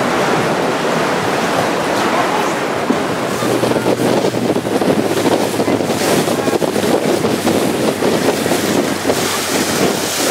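Sea water splashing and rushing against the hull of a moving inflatable boat, with wind buffeting the microphone. From about three seconds in it grows louder and choppier, over a faint steady low hum.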